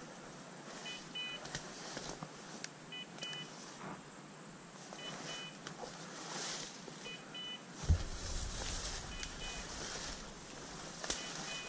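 A hunting dog's beeper collar giving a short double beep about every two seconds, over rustling and crackling from walking through dry brush. About eight seconds in comes a sharp thump, followed by a low rumble.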